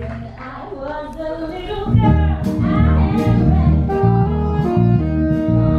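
Music with a singing voice over steady bass notes, quieter for about the first two seconds and then fuller and louder.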